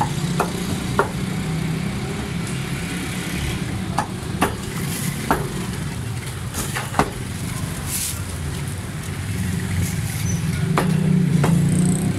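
Butchers' cleavers chopping chicken on wooden chopping blocks: sharp, irregular chops, several in quick succession at times, over a steady low engine hum.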